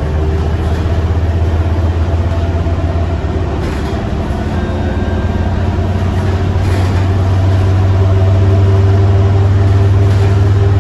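Scania K230UB bus's five-cylinder diesel engine pulling steadily as the bus drives, a deep hum heard inside the cabin near the rear, growing a little louder in the second half.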